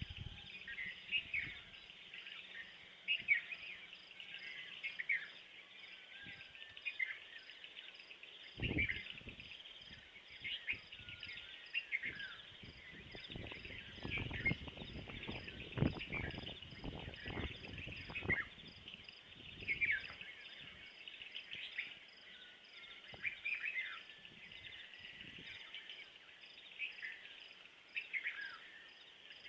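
Birds singing in a dawn chorus, with short downward-sliding notes repeated about once a second, over a steady, evenly pulsing insect trill. Low thuds and rumbles come through in the middle.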